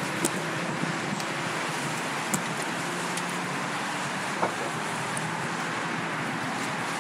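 Steady road traffic noise, with a few sharp clicks scattered through it.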